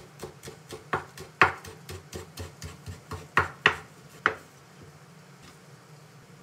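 Chef's knife slicing rolled shiso leaves on a bamboo cutting board: a quick, steady rhythm of about four blade taps a second, a few of them sharper, stopping about four seconds in.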